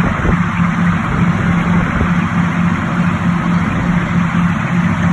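Engine of a 7¼-inch gauge miniature Class 42 locomotive running steadily as it travels along the track. It gives a continuous low drone that pulses evenly, over a steady hiss.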